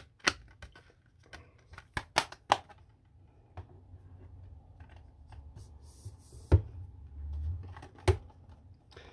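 Clicks, taps and knocks of metal steelbook cases and their plastic disc trays being handled and slid in and out of a tin collector's box, with a low rubbing rumble between the clicks and a louder knock about six and a half seconds in.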